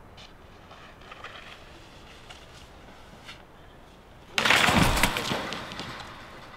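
A freeskier crash-landing: about four and a half seconds in, skis and body slam down onto snow and concrete in one loud, scraping impact that fades over about a second as he slides to a stop. Before it there are only a few faint scrapes of skis on snow.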